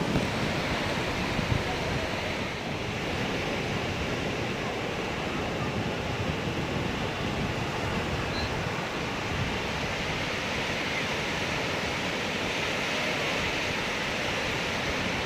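Sea surf washing onto the beach: a steady rush of waves, with some wind on the microphone.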